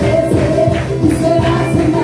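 Live gospel worship music: a band playing with a steady percussion beat and tambourine, with voices singing over it.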